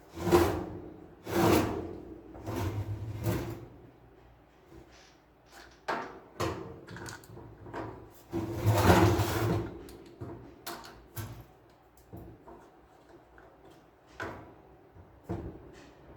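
Irregular knocks, clicks and short sliding scrapes of hard plastic parts being handled, as when a laser printer's covers and gear parts are worked on by hand.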